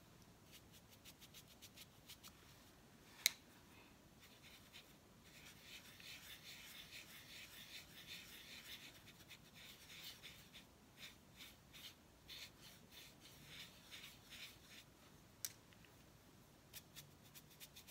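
Faint scratchy rubbing and quick ticking of a stiff scruffy paintbrush working powdered copper eyeshadow onto the hard surface of a painted gourd, with two sharp clicks, one a few seconds in and one near the end.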